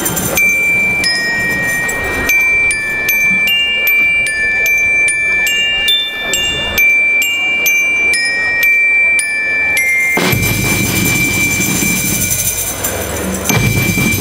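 School rhythm band's bell lyres playing a melody on their own, each struck note ringing on. About ten seconds in, the rest of the band with drums comes in and the music gets fuller.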